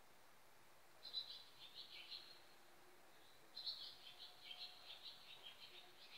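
A small songbird singing two quick, twittering phrases, the first about a second in and a longer one from about three and a half seconds, faint over a quiet background.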